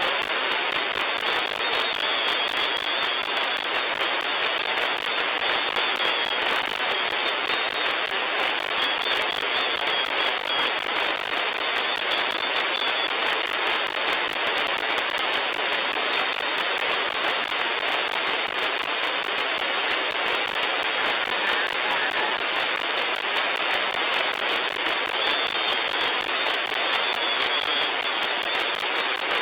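Steady hiss and crackle of HF band static from a software-defined radio receiver tuned to an amateur band in single-sideband mode, with no station transmitting. The noise is cut off sharply above the voice range by the receiver's filter.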